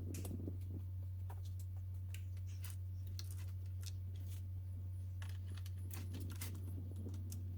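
Scattered light clicks and taps from hand work on plastic bumper trim and fasteners, over a steady low hum.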